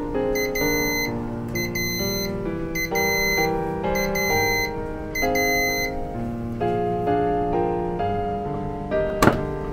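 Background piano music over a rice cooker's electronic beeps, six short identical beeps about one a second, signalling that cooking is done. About nine seconds in there is a sharp click as the lid release is pressed.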